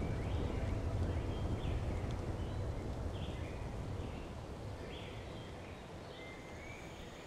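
Birds calling with short chirps about once a second over a low rumble that gradually fades away. A faint steady high tone comes in near the end.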